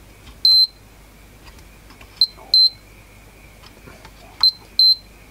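A digital multimeter in diode/continuity test beeps five times as its probes are touched across the bridge rectifier diodes: short high beeps, the later ones coming in pairs about half a second apart. Each beep marks a junction that conducts, and the diodes test okay.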